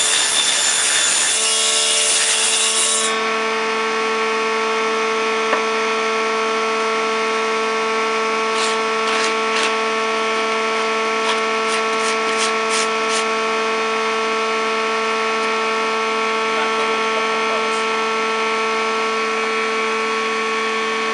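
UTOOL 300 woodworking machine's motor running with a steady whine, cutting through wood strips for hive-frame bottom bars for about the first three seconds, then running without load. A quick series of short sharp ticks comes about nine to thirteen seconds in.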